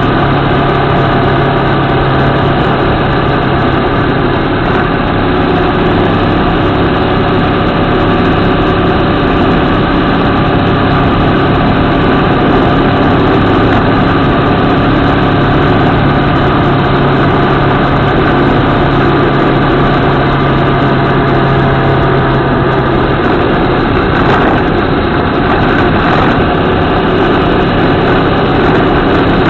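Motorcycle engine of a CFMOTO 650MT, a parallel twin, running at a steady cruising pace, picked up by a camera mounted on the bike and mixed with wind and road rush.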